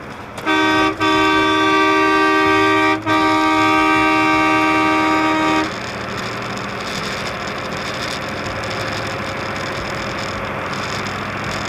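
An air horn sounds three times: a short toot and then two long blasts, each one steady and two-toned. It then cuts off, leaving the steady road and engine noise of the moving truck.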